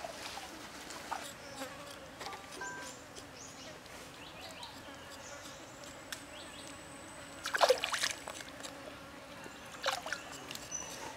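A knife scraping the skin of a raw pig leg over a steady background of buzzing insects and trickling stream water. Two louder short sounds come a little past the middle and near the end.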